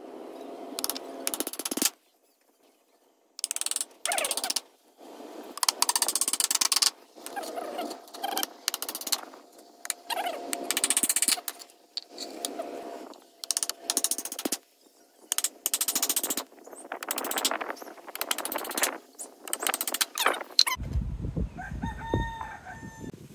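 Chickens clucking and a rooster crowing, in a long string of short calls with brief pauses.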